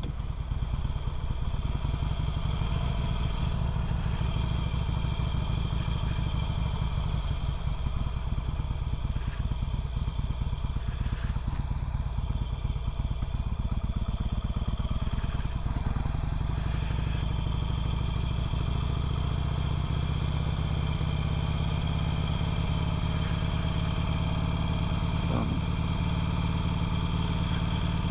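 2008 Harley-Davidson Sportster 883L's air-cooled V-twin running steadily while ridden down the street, heard through a helmet-mounted camera. Its note shifts slightly about halfway through.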